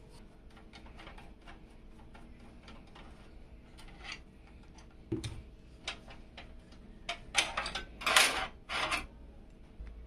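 Soft scattered clicks of hands working in a steel PC case, then a cluster of louder metal clinks and rattles between about seven and nine seconds in, while the expansion-slot bracket is handled.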